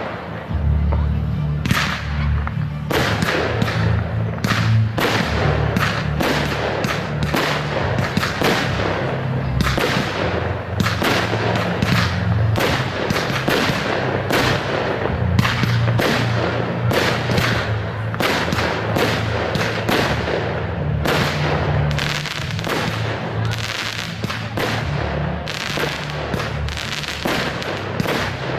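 Fireworks display: a dense, continuous run of shell bursts and crackling reports, several a second, with music's bass line underneath.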